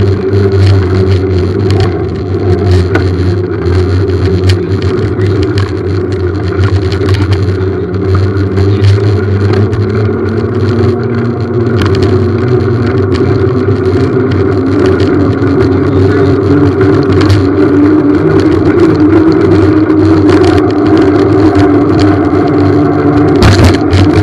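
A small engine running steadily while the bike rides over pavement, with scattered clicks and rattles and a loud bump near the end.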